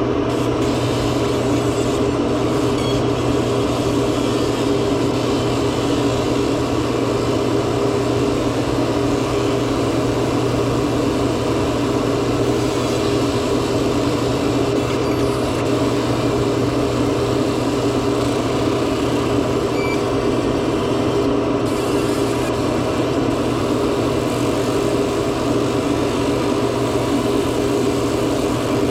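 Back-glass removal laser machine running with a steady hum and a constant low drone, its fans and cooling working while the laser burns off the back glass adhesive.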